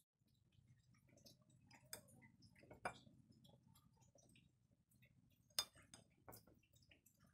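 Faint clinks of a metal spoon against a ceramic bowl while sauce is spooned over the chicken feet: a handful of separate light ticks, the sharpest a little past halfway, over near silence.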